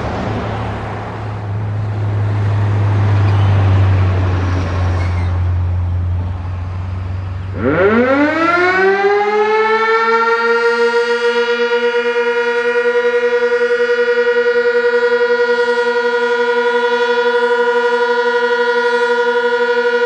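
Road-traffic rumble, then about seven seconds in a Sentry 16V1T-B tornado warning siren winds up. Its tone rises quickly and settles into a steady high wail on its monthly test, pulsing slightly in loudness.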